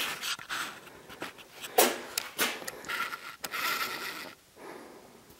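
Handling noise from a handheld camera being moved up close: scattered clicks, knocks and rubbing scrapes with brief rustles, dying away near the end.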